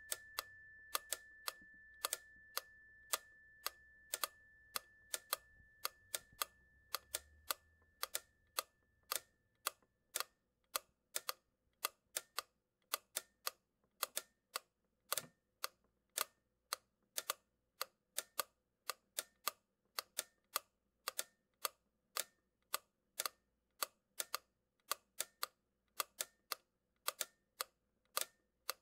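A steady run of sharp, unevenly spaced clicks or ticks, about two to three a second. Under them, a single high ringing tone dies away over the first ten seconds or so.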